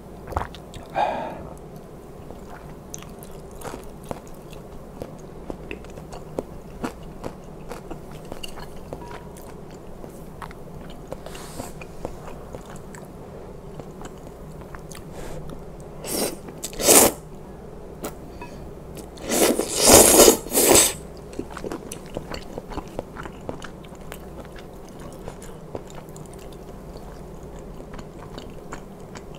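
Close-miked chewing and wet mouth sounds of a man eating spicy knife-cut noodle soup, with small clicks throughout and two loud noodle slurps, about sixteen seconds in and again around twenty seconds.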